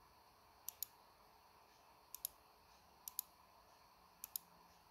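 Computer mouse button clicked four times, about once a second, each click a quick press-and-release double tick.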